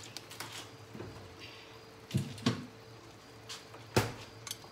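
A few soft knocks and clicks of kitchen things being handled, the loudest and sharpest about four seconds in, over a faint steady hum.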